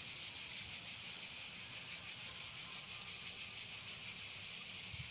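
Steady high-pitched buzzing of insects, unbroken and with a faint rapid pulsing.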